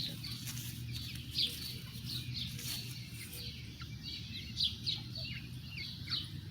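Birds chirping: many short, high, falling chirps repeating over a steady low background hum.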